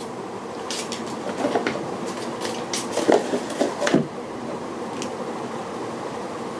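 A small plastic package of super glue being handled and opened by hand: scattered clicks and crackles over the first four seconds, then only a steady fan-like hum.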